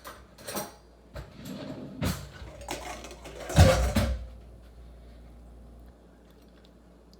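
Kitchen handling sounds: a few short knocks and clinks of utensils and dishes, with one louder thump and clatter about three and a half seconds in, then only a low background hum.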